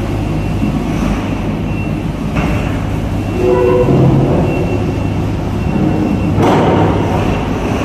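Heavy diesel engines running with a steady low rumble, echoing in a ship's enclosed vehicle deck.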